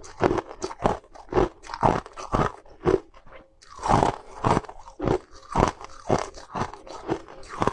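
Close-up crunching of a person chewing something hard and crunchy, about two crunches a second, with a brief pause about three seconds in.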